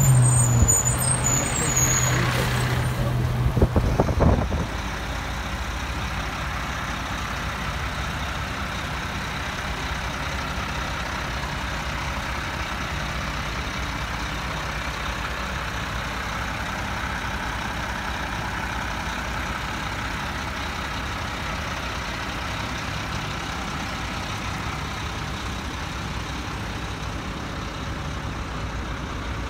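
A heavy diesel tow truck and the fire engine it is towing pass close by. The first few seconds are loud, with a high brake-like squeal early on and a few clanks about four seconds in. Then the engine rumble settles to a steady level and holds.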